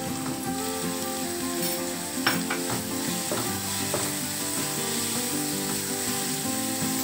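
Chopped onion, tomato, green chilli and curry leaves sizzling in hot oil in a nonstick kadhai. A wooden spatula stirs them and scrapes and taps the pan a few times. This is the tempering stage of the potato filling for masala dosa, with the tomato and turmeric just added.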